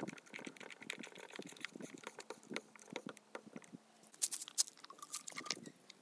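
Small clicks and rubbing as a rubber spark plug boot is worked onto a chainsaw's spark plug by hand, with a few louder clicks about four seconds in and again near the end as it is pushed home.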